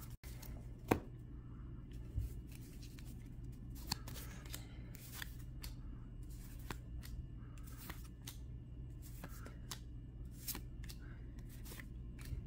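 A stack of Yu-Gi-Oh trading cards being flipped through by hand, each card slid off the top with a short papery flick, irregularly, about once or twice a second.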